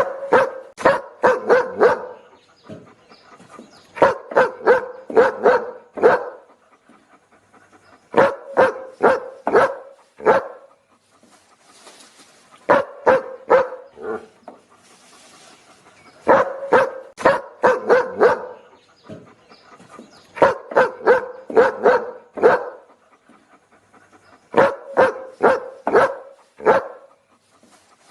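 A dog barking in quick runs of five or six barks, each run lasting about two seconds, with a pause of about two seconds before the next; about seven runs in all.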